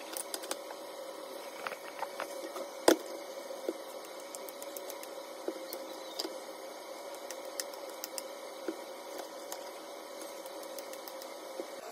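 Quiet light taps and clicks of hands handling dough and a plastic bowl on a kitchen counter, with one sharper click about three seconds in, over a faint steady hum.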